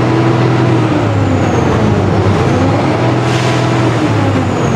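Mitsubishi Fuso 6M70 six-cylinder diesel engine running steadily, its pitch swelling slightly now and then, with a brief hiss about three seconds in.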